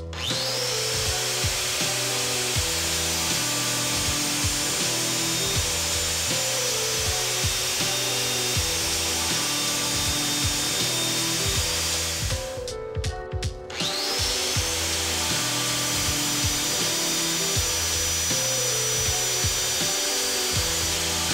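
Angle grinder running as welding electrodes are ground against its wheel for a spark test. It spins up with a rising whine, cuts out about twelve seconds in and spins up again about two seconds later. Background music with a stepping bass line plays underneath.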